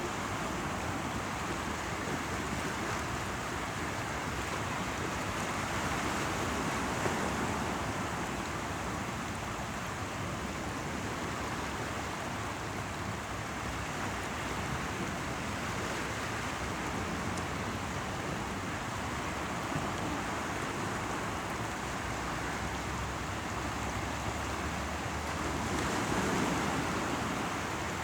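Sea waves washing ashore mixed with running water: a steady rushing wash that swells gently about a quarter of the way in and again near the end.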